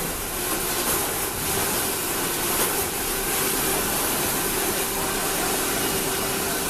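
A machine running steadily, a noisy whir with a steady hum under it and a few light clicks.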